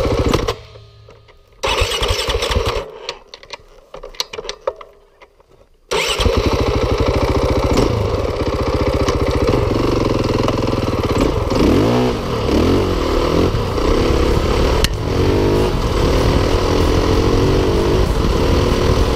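KTM 530 EXC dirt bike's single-cylinder four-stroke engine, heard from beside the muffler: after a few seconds of clicks and a short burst, it fires about six seconds in and runs steadily, with a brief rise and fall in revs about halfway through.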